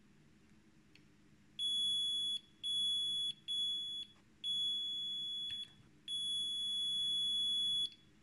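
Digital multimeter's continuity buzzer beeping: five steady high-pitched beeps of uneven length, the last and longest nearly two seconds. They sound as the probe makes and breaks contact between the ground pin and one wire of the debug connector, marking that wire as ground.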